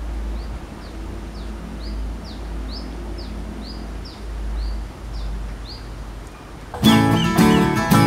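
Brown-throated sunbird calling: a run of short, sharp falling notes, about two a second, over a low rumble. Loud guitar music cuts in suddenly near the end.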